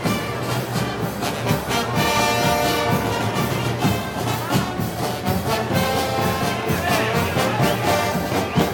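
Brass band playing a festival march, with trumpets and trombones over a steady drum beat.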